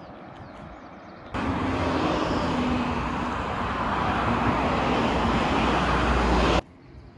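Loud, steady rush of road traffic, like a vehicle passing close by, with a low rumble building toward the end. It starts suddenly about a second in and cuts off suddenly near the end, after faint outdoor ambience.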